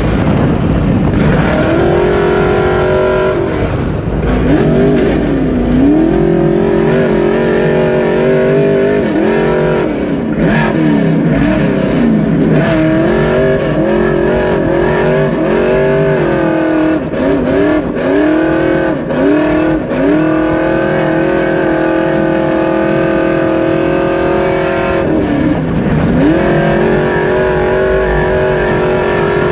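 Super stock race truck's engine heard from inside the cab under racing throttle, revs repeatedly dropping and climbing as the driver lifts and gets back on the gas. The revs are held steady for several seconds, then dip and climb again near the end.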